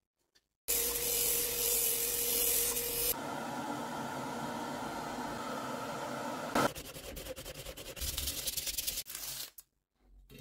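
Abrasive rubbing on the workpiece in several hard-cut takes. First comes a loud, rough rubbing with a faint steady hum under it, then a duller stretch of rubbing. After a sharp click it turns into quick, regular back-and-forth strokes that stop shortly before the end.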